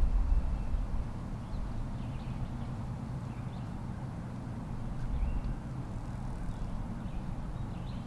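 Outdoor ambience: a steady low rumble with faint, short bird chirps scattered through, and a brief swell in the rumble about five seconds in.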